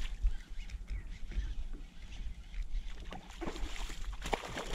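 A hooked northern pike thrashing and splashing at the lake surface beside the paddleboard, with a run of sharp splashes from about three seconds in. A steady low rumble lies under it.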